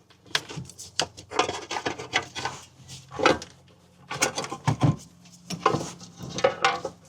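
Irregular clinks and knocks of hand tools and metal parts being handled while a valve cover is taken off a big-block V8.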